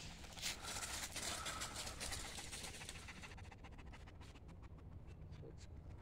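Footsteps crunching and rustling through dry fallen leaves, dense at first and thinning to scattered crackles after about three seconds.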